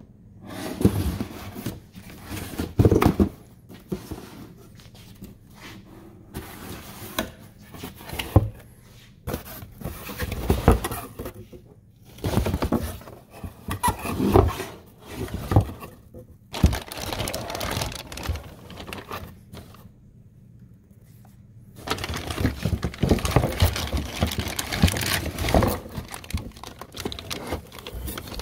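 Cardboard box and packaging being handled in irregular bursts of rustling and scraping, then a plastic bag crinkling continuously from about two-thirds through as the bagged control arm inside is grasped.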